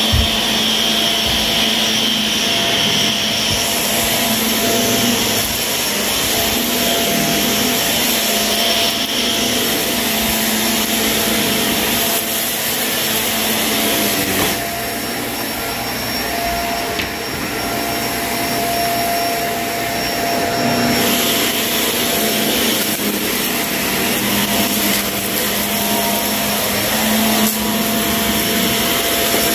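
Shark vacuum cleaner running steadily as it is pushed over carpet, its motor humming under a dense rush of suction. About halfway through, the higher part of the sound drops for several seconds before coming back.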